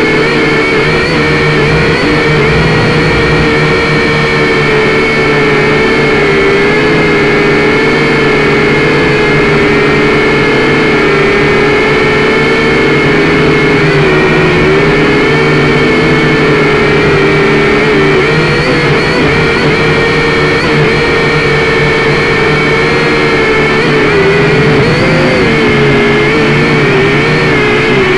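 Electric motors and propellers of a small camera drone, heard from its own onboard camera: a loud, steady whine over a hum, its pitch wavering up and down in the last few seconds.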